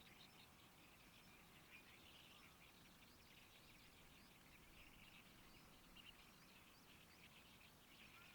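Faint chorus of many small birds chirping continuously, with a low steady outdoor background.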